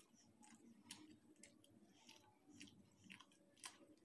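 Quiet close-miked chewing of tawa roti and boiled-egg bhurji, with irregular soft wet mouth clicks.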